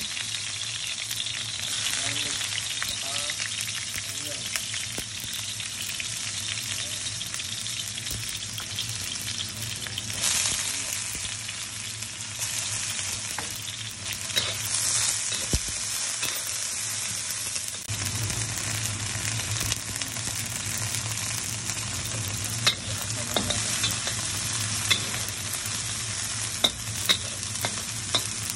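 Chicken hearts, gizzards and liver sizzling in oil in a pan as they are stirred. A few sharp clicks of the utensil against the pan come near the end.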